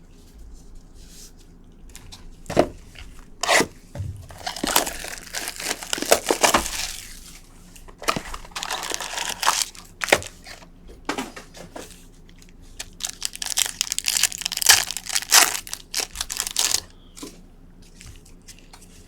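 Plastic trading-card pack wrappers being torn open and crinkled, in two longer bouts of crackling with scattered clicks and rustles between them.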